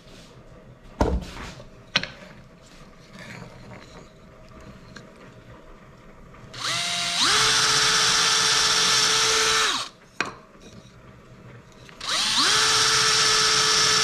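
Handheld power drill boring quarter-inch pilot holes into a wooden block, in two bursts of about three seconds each. The motor's whine rises as it spins up, holds steady while cutting, and stops; the first burst starts about seven seconds in and the second about twelve seconds in. Two sharp knocks come about one and two seconds in.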